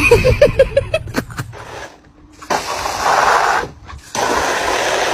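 A small dog gives a quick run of about six short, pitched yips. Then a garden-hose spray nozzle hisses twice, each burst about a second long, as its jet hits an empty plastic kiddie pool.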